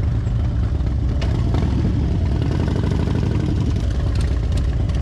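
Harley-Davidson Fat Bob's V-twin engine running steadily while the motorcycle is ridden along.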